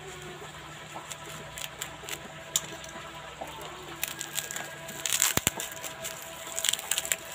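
Crinkling and crackling of a plastic bag and taped paper wrapping being peeled by hand off a seedling's root ball, with scattered crackles that thicken into louder bursts about five seconds in and again near the end.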